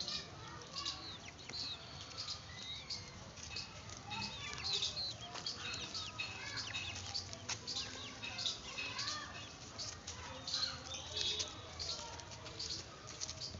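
Many small birds chirping, with short high overlapping calls continuing throughout.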